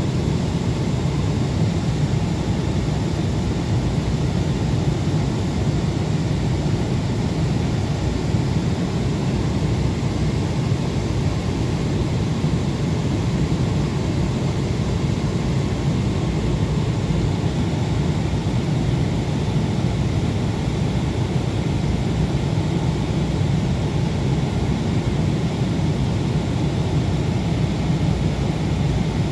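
Boeing 767 cabin noise at cruise altitude: a steady low rumble with a fainter hiss above it, unchanging throughout.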